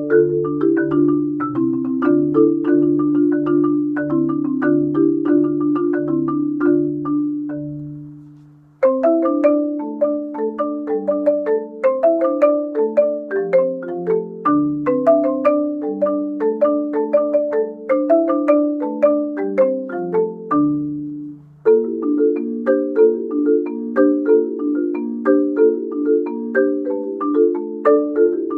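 Solo marimba struck with yarn mallets, playing fast repeating note patterns in the low and middle register. The notes die away about eight seconds in, a new passage starts almost at once, and after a short break about three-quarters of the way through a steady repeating pattern takes over.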